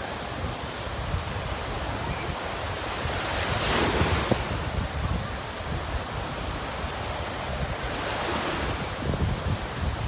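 Rough, stormy sea surf breaking on the shore, with strong wind buffeting the microphone. The surf swells louder about four seconds in and again a little after eight seconds as waves crash.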